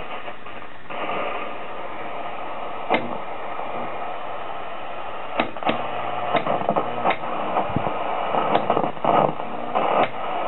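Static hiss from the loudspeaker of a 1960 Philco Briefcase 19 portable television showing snow with no station tuned in. From about three seconds in, sharp clicks break through the hiss about seven times.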